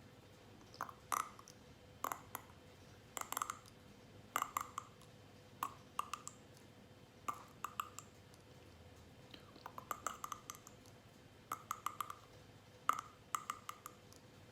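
Neck joints cracking: about a dozen quick clusters of sharp pops, each of two to five cracks, coming roughly once a second at an uneven pace.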